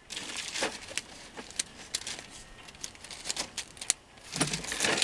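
Crinkly rustling and light clicks of a PET plastic insulation strip being worked into an electric motor's stator slots, with a louder rustle near the end.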